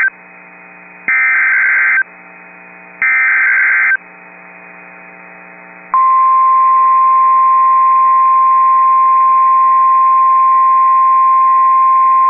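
Emergency Alert System SAME digital header: two one-second bursts of raspy, warbling data tones about a second apart, the end of the header that codes the tornado warning for alert receivers. About six seconds in, the NOAA Weather Radio 1050 Hz warning alarm tone begins, a single steady high tone that signals a warning-level alert.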